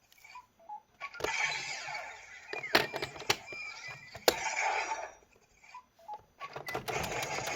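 Electronic sound effects from a Zenkaiger Geartlinger toy changer: a few short beeps, then hissing, whooshing effects broken by sharp clicks, and near the end a fast run of clicks over a steady effect sound.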